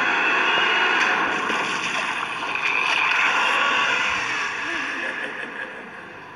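Water rushing through a sewer storm drain, a steady noisy wash that holds for about four seconds and then fades away.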